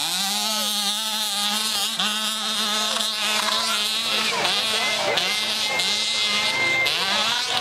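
Small green youth dirt bike's engine running hard up a hill-climb track, holding a steady pitch at first, then revving up and down several times in the second half.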